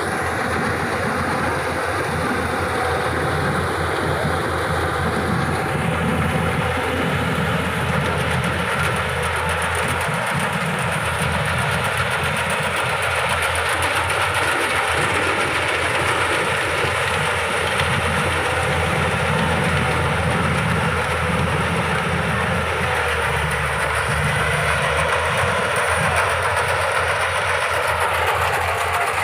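Yanmar AW70GV combine harvester running under load while harvesting rice: the steady diesel engine note under a fast, even clatter from the cutting and threshing mechanisms.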